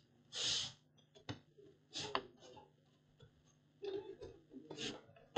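Faint handling of a laptop's plastic bottom cover as it is pressed into place and the laptop is moved: a short rustle near the start, then a few light clicks and knocks.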